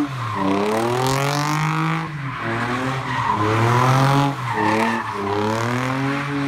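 Car doing donuts: the engine is held at high revs, its pitch dipping and climbing back about every two seconds, while the rear tyres squeal and spin through the smoke.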